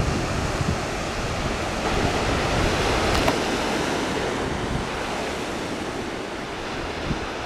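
Wind buffeting the microphone: a steady rushing with low rumbling gusts, swelling for a couple of seconds near the middle.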